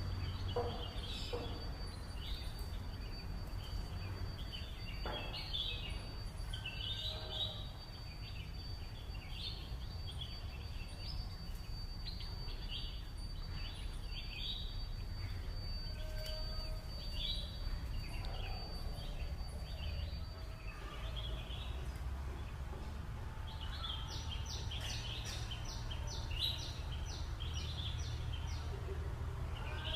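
Green parrot calling with short, sharp chirps throughout and a quick run of about ten calls a little past two-thirds of the way in, over a steady low rumble of background noise. A thin, steady high whine runs until about two-thirds of the way through, then stops.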